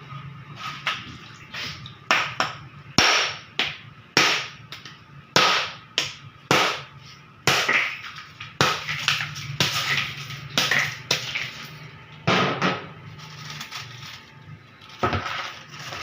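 Block ice being knocked and cracked out of plastic containers: repeated sharp knocks and cracks at an irregular pace, about one a second, over a steady low hum.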